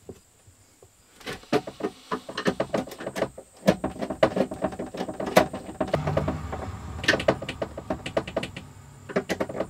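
Close handling noise of 14-gauge two-core wire being worked into the screw terminals of a solar charge controller: irregular rustling, scraping and small clicks, starting about a second in and getting busier from about four seconds.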